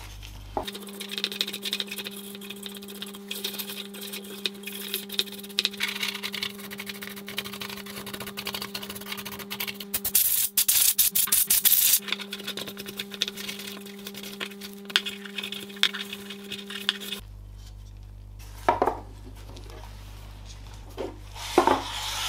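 Bristle brush scrubbing dust off a plastic PC case fan, with scratchy rubbing and small clicks over a steady low hum, and a loud burst of fast scratching about halfway through. Later a cloth wipes the fan, and near the end a thin metal plate knocks on the table twice.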